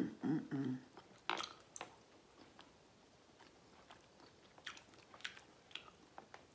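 A person chewing food close to the microphone, with scattered wet mouth smacks and clicks. A short hummed "mm" comes right at the start.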